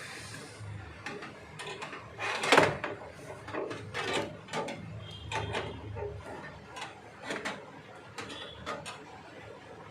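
Irregular clicks and knocks of hard objects being handled, the loudest about two and a half seconds in.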